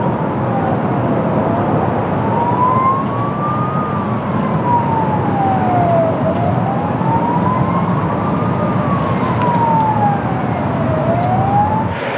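A wailing siren, its pitch slowly rising and falling about every two and a half seconds, over steady rushing background noise.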